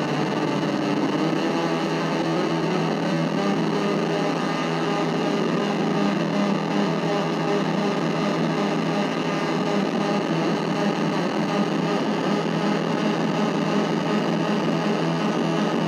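Nova Drone analog synthesizer playing a dense, distorted drone that holds steady without a break.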